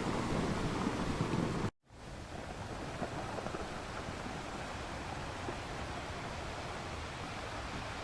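Sea waves washing on a shore, a steady rushing surf. About two seconds in it cuts out for a split second, then carries on quieter and more even.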